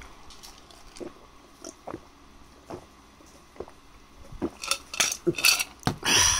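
A plastic takeaway tray and plastic spoon being handled: light scattered clicks and taps, then a run of louder plastic clatters and crinkles near the end.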